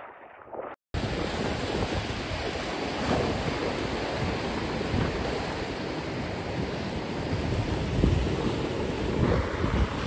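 Surf breaking and washing onto the beach, with wind buffeting the microphone, starting abruptly about a second in.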